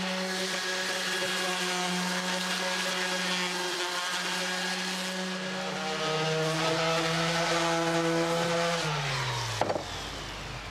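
Electric power tool motor running at a steady pitch, dropping lower about halfway through as it bogs under load while cutting into a wooden beam, then winding down to a stop near the end. A couple of sharp knocks follow.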